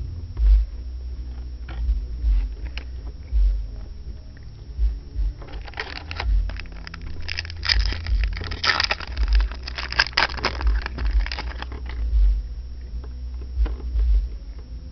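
Trading cards and a foil card pack being handled, with crackling and scraping for several seconds in the middle, over repeated low thumps.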